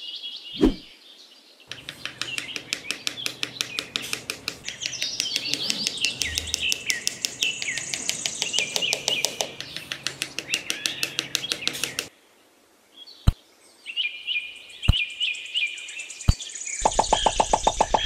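Birds chirping and trilling in a busy stretch, broken off at about twelve seconds. After a short pause come three sharp separate clicks and more chirping, and a rapid pulsing sound starts near the end.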